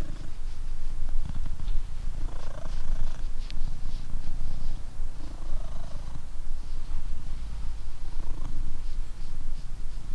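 Blue British Shorthair cat purring steadily while being stroked, the purr close to the microphone.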